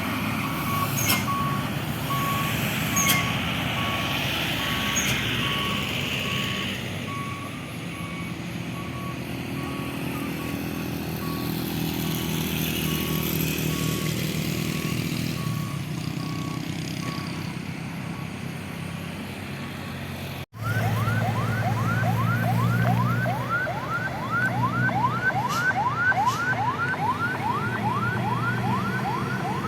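Heavy bus engine running, with a pulsed beeping tone about twice a second for the first third. After a sudden cut about two-thirds in, a fast repeating rising whoop like a yelp siren, about three a second, from a bus's electronic horn over a louder engine rumble.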